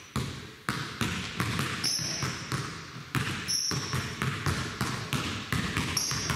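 Basketball dribbled hard on a hardwood gym floor in behind-the-back moves, about three bounces a second, each bounce echoing. Short high sneaker squeaks on the floor come now and then.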